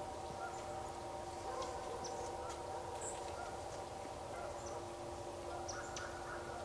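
Distant geese honking in short, scattered calls over a steady background hum of several even tones, with brief high chirps now and then.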